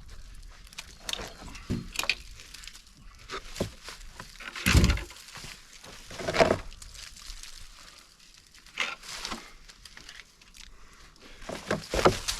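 Irregular handling noises: scattered clicks and knocks with a few louder thuds, the loudest about five seconds in.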